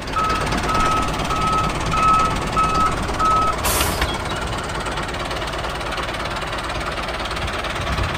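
Tractor engine running steadily while a reversing alarm beeps six times, about two beeps a second, in the first few seconds. A short burst of noise cuts in about four seconds in.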